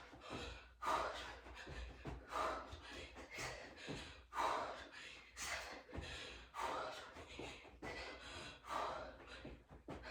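A woman breathing hard from exertion during a long set of exercise reps: loud, rhythmic breaths, roughly one a second.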